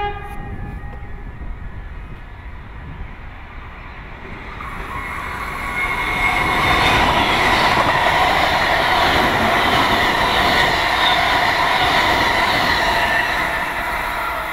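NSW TrainLink V-set double-deck electric intercity train passing through the station without stopping. The end of a horn blast fades in the first second, then the rumble and wheel-on-rail noise build from about four seconds in, are loudest through the middle and ease slightly near the end.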